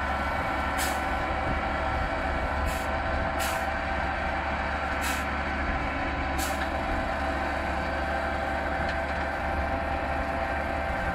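Truck-mounted VSOS1 ditch-milling machine at work, its engine and spinning milling wheel making a steady whining drone. Five short hisses sound over it in the first seven seconds.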